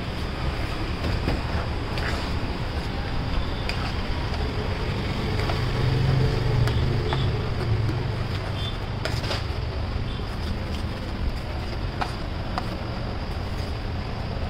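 Garlic paste frying in hot oil on a large pav bhaji tawa: a steady sizzle with scattered clicks of the metal spatula against the pan, over a low steady rumble.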